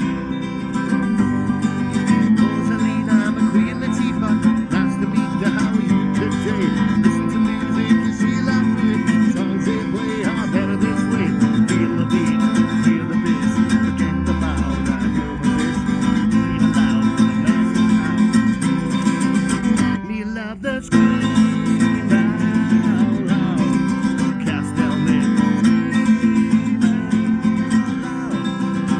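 Background music led by strummed guitar, playing steadily with a brief dip about twenty seconds in.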